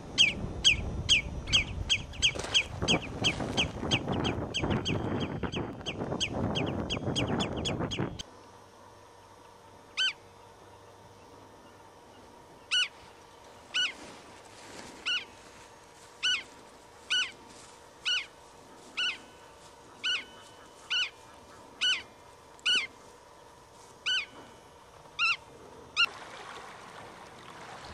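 Common redshank calling in flight, a rapid run of sharp falling notes about three a second, over wind noise on the microphone. After a cut, a black-tailed godwit gives a repeated sharp call about once a second.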